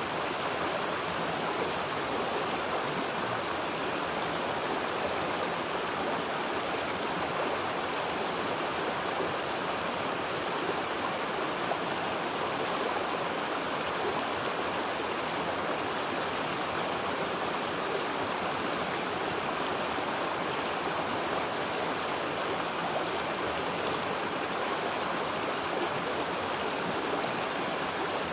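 Steady, unbroken rush of running water, even in level throughout.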